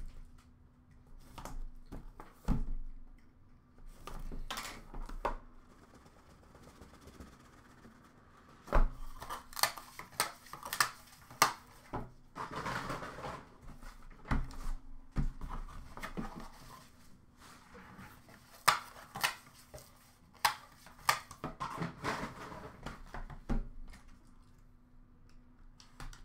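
Handling noise as a hockey card box is worked open: scattered taps, knocks and scrapes of cardboard packaging against the counter, with stretches of rustling. A faint steady hum runs underneath.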